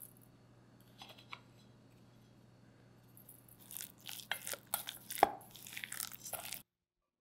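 Wooden chopsticks mixing wet minced shrimp in a stainless steel bowl: a run of squelching and scraping with sharp clicks of the chopsticks against the bowl, starting after about three seconds and loudest a little past five seconds. The sound cuts off suddenly near the end.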